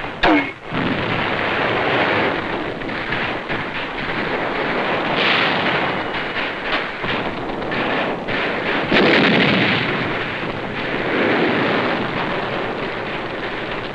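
Battle noise on an old film soundtrack: a continuous rumble of mortar bursts and explosions, cut through by many sharp cracks of gunfire and swelling louder several times. A short falling whistle comes just after the start.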